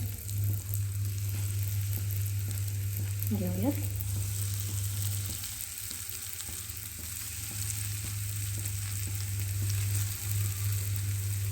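Bread strips shallow-frying in hot ghee and oil in a pan: a steady sizzle with small crackles. A constant low hum runs underneath.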